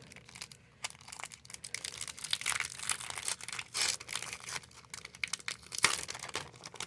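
Packaging crinkling and rustling in irregular crackles as a sticker grab bag is handled and opened, starting about a second in.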